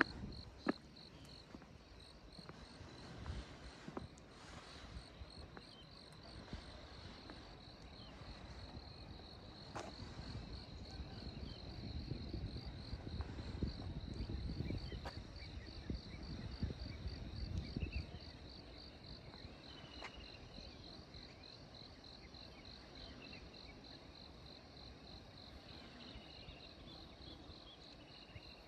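An insect chirping steadily in a high-pitched pulsed trill, about three pulses a second. Under it runs a low rumble that grows louder in the middle, and two short, faint falling whistles come in the second half.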